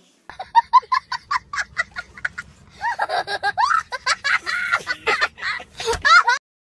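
Young child laughing hard in rapid, high-pitched cackles, with rising and falling squeals in the middle, cutting off suddenly near the end.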